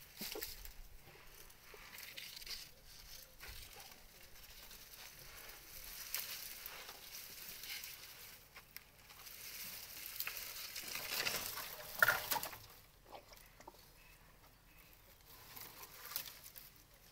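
Dry cut branches and leaves rustling and crackling as elephants move and feed among them, a light patchy crackle that grows louder about ten to twelve seconds in.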